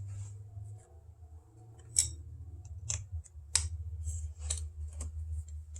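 Metal wrenches clicking and clinking against a 10mm nut and stud while the coil pack lead nut is being undone: a handful of sharp, separate clicks at irregular spacing.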